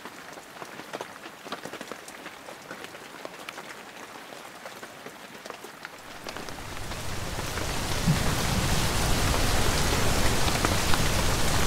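Rain: scattered drops pattering at first, then swelling into a heavy downpour from about halfway through.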